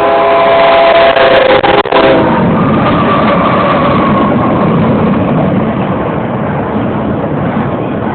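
Multi-chime horn of a CSX freight train's GE diesel locomotives blowing, cutting off about two seconds in, with one higher note fading out soon after; then the loud, steady rumble of the locomotives and train running past.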